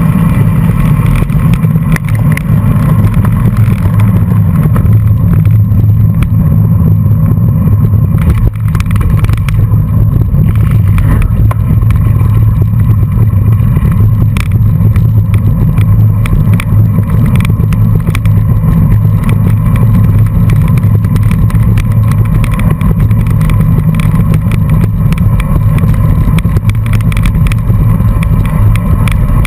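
Wind rumbling over a bike-mounted camera's microphone, with tyre and bicycle noise from riding in a pack on a dirt road. Frequent small clicks and rattles run through it, thickening after about nine seconds.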